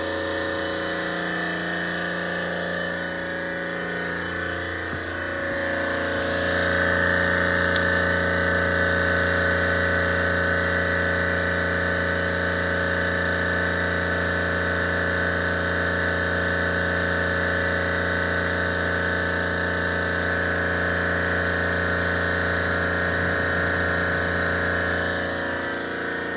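Water-cooled Copeland semi-hermetic refrigeration compressor running steadily: a low hum with a layer of steady whining tones above it, getting a little louder about six seconds in.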